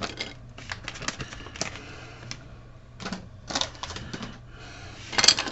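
Small plastic model-kit parts clicking and tapping as they are handled, in irregular light clicks with a couple of quicker clusters.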